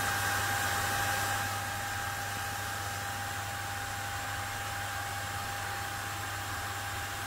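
Coolerguys 1U active vapor-chamber CPU cooler's small high-speed fan blowing under benchmark load: a steady rushing hiss with a thin whine, easing slightly about two seconds in.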